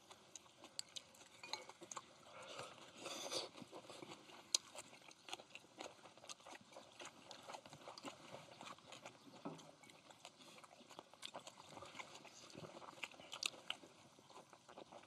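Quiet eating sounds: chewing, with scattered irregular clicks and taps of utensils, and a brief denser rustle about three seconds in.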